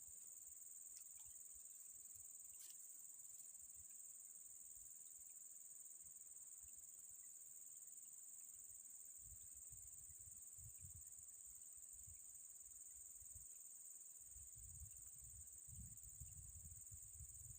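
Faint, steady, high-pitched insect chirring in the surrounding vegetation, one unbroken tone throughout. Low rumbles come in about halfway through and again near the end.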